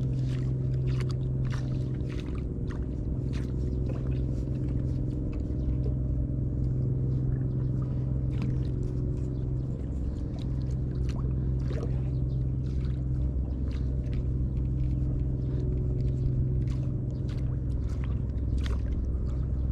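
A steady low engine drone that holds one pitch throughout, with scattered light clicks and taps over it.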